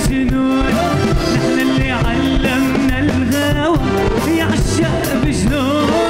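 Male singer performing an Arabic pop song live over a full band, his voice bending and ornamenting the melody above a steady drum beat.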